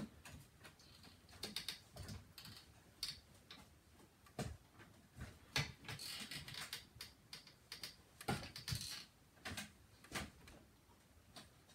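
Faint, irregular clicks and taps with a few short bursts of rustling or scraping: small parts and hardware being handled while fitting a ceiling fan.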